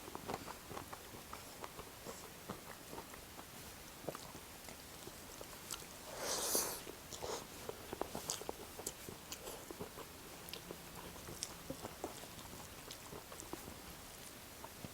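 Close-up eating sounds of fried chicken and rice being chewed: many small mouth clicks, with one louder noise lasting about half a second around six and a half seconds in.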